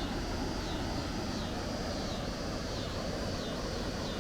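Steady rushing rumble of water pouring over a river dam. Over it, a high call repeats about once a second.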